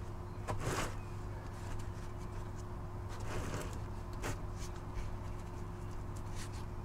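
Faint rustles and a few short scrapes and taps as a gloved hand unscrews a sump drain plug from the oil pan, over a steady low hum.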